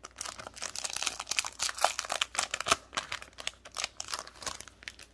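Foil wrapper of a Pokémon TCG Evolving Skies booster pack crinkling and tearing as it is pulled open by hand: a dense, irregular run of crackles.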